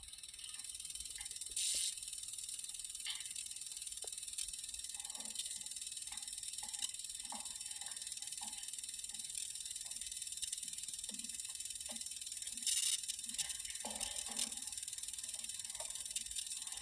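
Steady high hiss of an old film soundtrack, swelling briefly twice, with faint scattered soft knocks beneath it.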